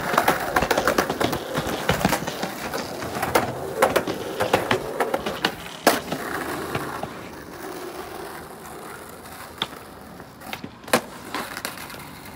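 Skateboard wheels rolling over concrete and asphalt, broken by sharp clacks as the board is popped and lands. The loudest clack comes about six seconds in, and the rolling is quieter in the second half, with a few more clacks near the end.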